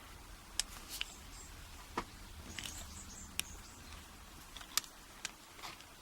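Scattered light metallic clicks and taps, about eight or nine spread over a few seconds, as a screwdriver is worked on a brass padlock to take it apart.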